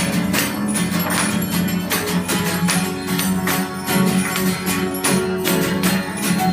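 Music with fast, even strikes of ringing percussion over sustained low tones, with no singing.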